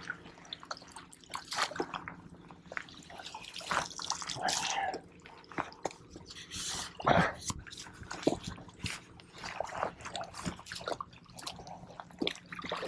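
Water splashing and dripping in irregular spurts as a large speckled trout is netted and lifted out of the water.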